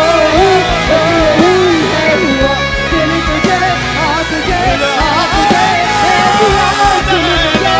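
Loud live rock band music with bass and drums, and a wavering lead melody over the band.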